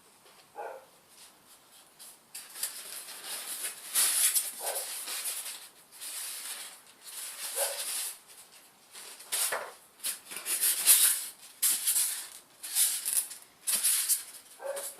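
Packaging being handled while a ceiling fan is unpacked, rustling and crinkling in irregular bursts that start about two seconds in, with a few short squeaks among them.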